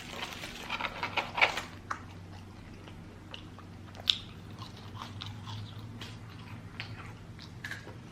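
Close-up biting and chewing of a crispy fried chicken sandwich with fries: a run of crunching in the first two seconds, then quieter chewing with a single sharp crunch about four seconds in.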